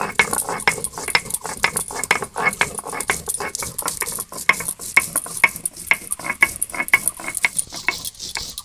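Stone roller (nora) scraped and knocked back and forth on a stone grinding slab (sil), crushing dry whole spices (coriander, black pepper, cumin and melon seeds) in rapid gritty strokes, several a second.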